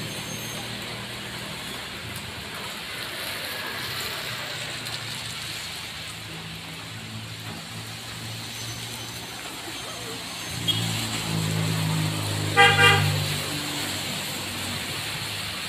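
Steady hiss of heavy rain. About eleven seconds in, a motor vehicle passes on the wet road, and a short horn toot, the loudest sound, follows about a second later.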